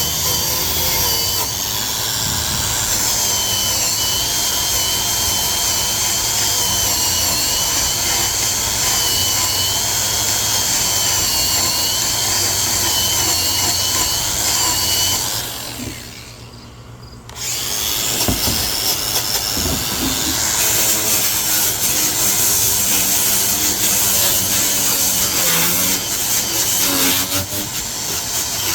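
Angle grinder with a wire wheel brush scouring corrosion off a steel brake rotor, running steadily with a whining motor. About halfway through it stops and the sound drops away for a couple of seconds, then it starts up again and carries on brushing.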